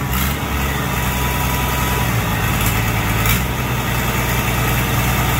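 Allis-Chalmers tractor engine idling steadily just after starting; the owner suspects it has poor compression.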